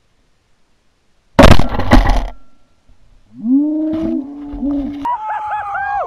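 Two shotgun shots about half a second apart, then loud whooping and yelling from the hunters in celebration.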